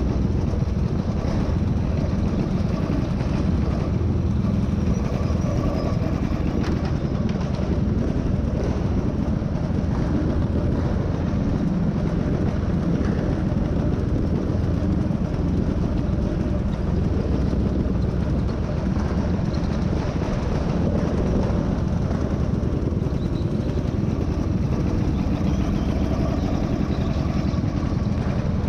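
A racing go-kart driving at speed, heard onboard close to the machine: a steady engine and chassis rumble whose loudness hardly changes.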